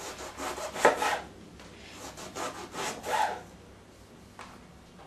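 Kitchen knife sawing through an eggplant onto a wooden cutting board in several scraping strokes, with a sharp knock about a second in.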